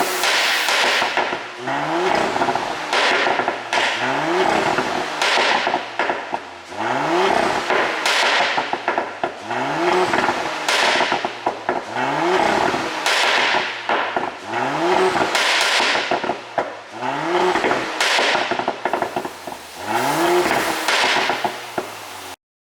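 2022 Porsche Cayenne's turbocharged 3.0-litre V6 revved again and again, a rise in revs about every two seconds, each followed by a burst of exhaust pops and crackles on lift-off from an ECU pop-and-crackle tune. The sound cuts off suddenly near the end.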